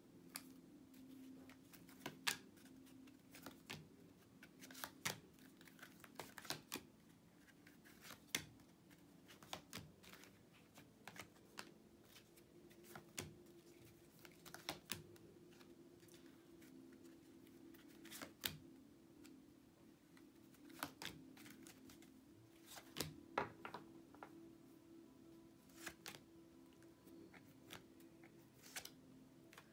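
Tarot cards being handled, drawn and laid down: soft irregular clicks and taps, a few a second at most, over a faint steady low hum.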